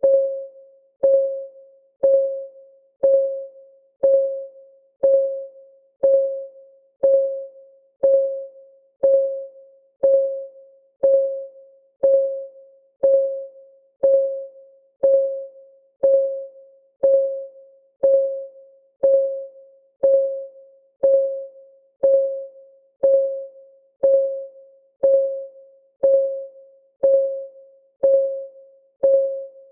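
Countdown timer's clock ticking sound: short, pitched ticks at a steady one per second, each with a sharp click and a quickly fading ring.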